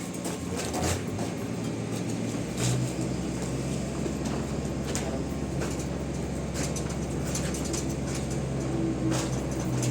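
An electric motor of a roll-up garage door starts about two seconds in and runs with a steady low hum, with scattered knocks and clatter.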